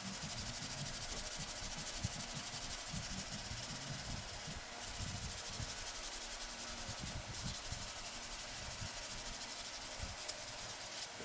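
Hand sanding of a helmet's horn plate with a sanding block: a rapid, even back-and-forth scratchy hiss, broken by a couple of brief pauses.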